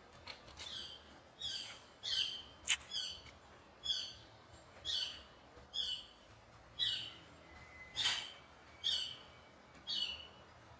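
An animal's short high call, repeated about once a second, each call sliding down in pitch.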